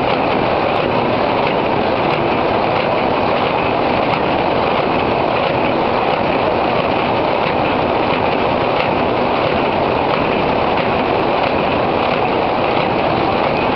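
Automatic square-bottom paper bag making machine running at full production speed, about 98 bags a minute. It gives a loud, steady mechanical noise with no pauses.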